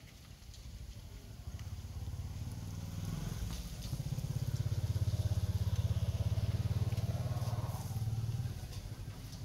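A low, pulsing engine rumble that grows louder over the first few seconds, holds, then drops off shortly before the end, like a motor vehicle passing by.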